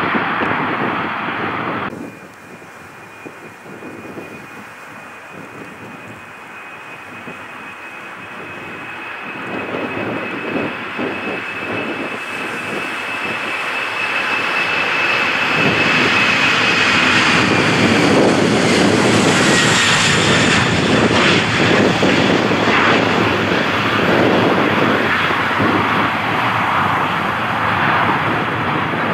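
Jet airliner noise clipped off a couple of seconds in. Then a Boeing 747-400's four turbofan engines at takeoff power grow steadily louder as it rolls and lifts off, a thin high whine over the jet noise that slides down in pitch as the aircraft passes.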